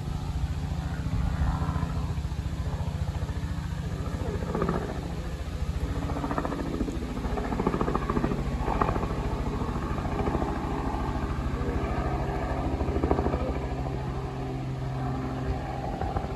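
Helicopter flying close by, out of sight: its rotor and engine make a steady, continuous drone.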